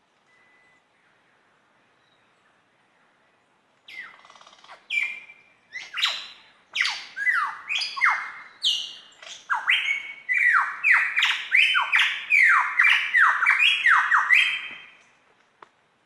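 Superb lyrebird singing: a run of loud whistled notes, each sweeping down in pitch. It starts about four seconds in, quickens into a rapid series and stops shortly before the end.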